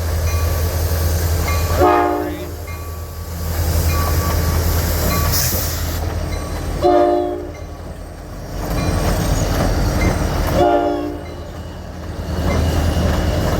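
Freight locomotive horn sounding three blasts about four to five seconds apart, over the steady low rumble of the approaching diesel locomotives.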